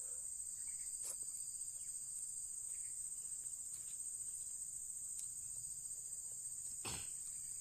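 Steady high-pitched drone of insects in the plantation, with a few soft clicks of a fork against a plastic bowl, the sharpest near the end.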